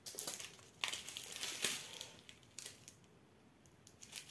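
Small clear plastic bags of diamond-painting drills crinkling as they are handled. The crackles are most frequent about a second in and fewer later.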